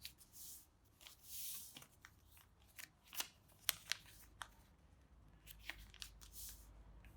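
Faint rustling and crisp crackles of a sheet of paper being folded and creased by hand into a triangle: soft swishes of paper sliding, with a scattering of sharp crinkling clicks through the middle.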